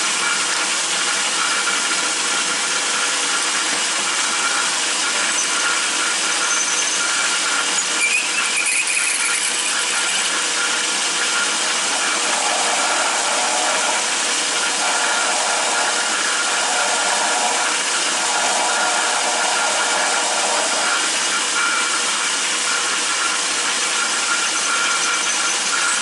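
Atlas 10-inch metal lathe running steadily while a drill bit fed from the tailstock bores a hole into the end of a steel backhoe pin, with a squeal from the cutting bit in the middle stretch.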